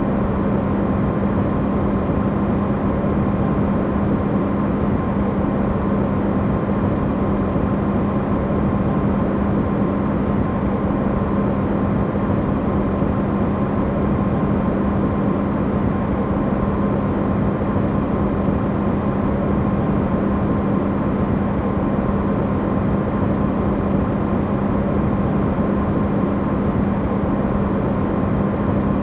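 Amplified refrigerator running: a steady, unchanging low whooshing drone with a constant hum underneath, used as white noise.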